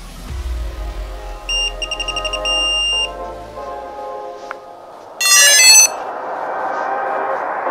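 Electronic beeps from a folding drone as its battery power button is pressed: a run of high beeps with a quick flutter, then about five seconds in a loud, short chirping chime of several high tones. A low rumble sits under the first few seconds, and a hiss rises toward the end.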